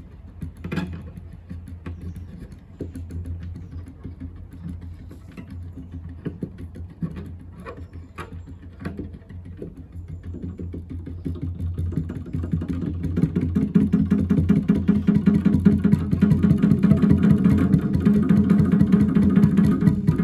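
Solo cello improvisation: a low steady drone under scattered sharp knocks and taps, then about twelve seconds in a dense, fast repeated figure swells in and grows louder.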